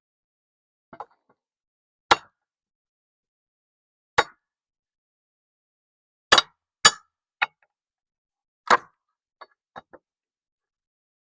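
About ten sharp knocks and clinks of a tool striking wood and metal as the boards of an old corral are knocked loose, spaced irregularly with a few coming in quick pairs.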